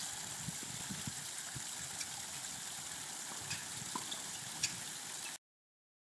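Small pondless waterfall: water spilling over a rock face and splashing steadily into its hidden well, with a few faint ticks. The sound cuts off suddenly near the end.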